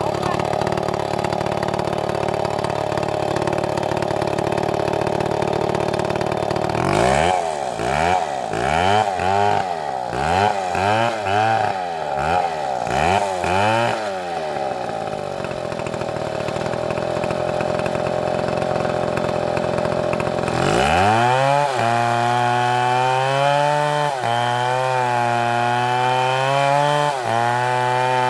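STIHL chainsaw running steadily, then blipped up and down about five times. About twenty seconds in it climbs to high revs and holds there cutting wood, the pitch sagging slightly every second or two under load.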